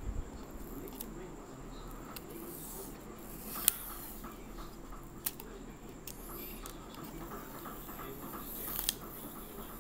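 Small plastic iPod Classic parts handled close to the microphone: light scraping and rustling with a few sharp clicks of plastic, the loudest a little over three and a half seconds in.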